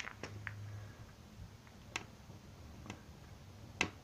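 Firewood catching in a homemade popcorn-tin wood stove, popping and crackling: a few scattered sharp pops, the loudest near the end.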